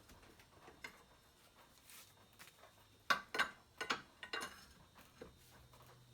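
Scattered sharp metallic clicks and knocks, most of them in a quick cluster about three to four and a half seconds in, as the VG30DE engine's cylinder head is worked loose from the block.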